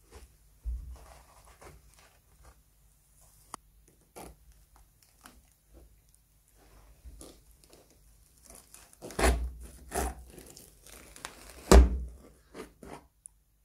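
Steel end-cutting pincers gripping, prying and tearing away old trim from the burlap-wrapped straw body of a rocking horse: scattered clicks, scrapes and tearing, with two louder thuds in the second half.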